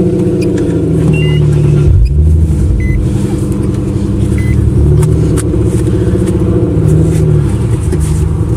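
Infiniti V6 engine idling close by, a steady low rumble whose note swells slightly a couple of times.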